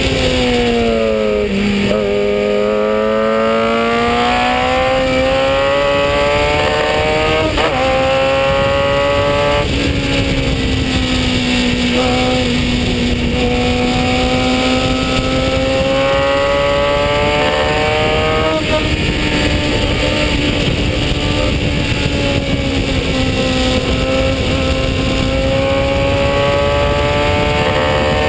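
1965 Brabham BT15 historic Formula 3 car's 1-litre four-cylinder racing engine at high revs, heard onboard. The revs drop at the very start, then climb in long rising sweeps broken by sudden gear changes, easing off once for a corner and climbing again near the end.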